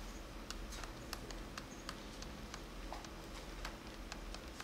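Light, irregular taps and clicks of a stylus tip on a touchscreen as a number is handwritten, about two or three a second, over a low steady hum.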